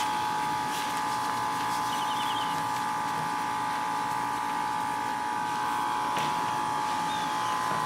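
A steady machine-like hum with a few fixed tones, unchanging throughout. A faint short bird trill comes about two seconds in.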